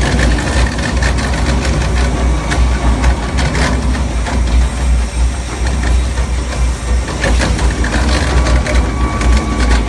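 XR700 single-shaft industrial shredder shredding books: a loud, steady low hum from its drive, with irregular crackling and sharp snaps as the paper is cut.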